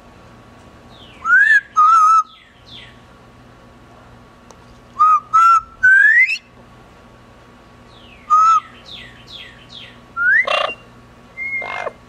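Double yellow-headed amazon parrot whistling short phrases of one to three clear notes, some gliding upward in pitch, with pauses of a second or more between them.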